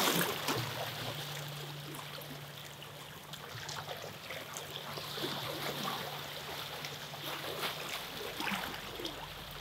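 Water washing and trickling along the shoreline, with a faint steady low hum underneath and a few light taps.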